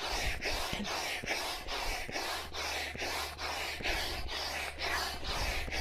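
Hand air pump inflating the air tubes of an inflatable caravan awning. It gives a steady rhythm of rushing air, about three strokes a second, as the tubes are topped up to bicycle-tyre hardness.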